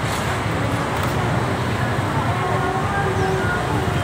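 Steady city street traffic, mostly motorbikes and cars passing, a continuous rumble with faint voices in the background.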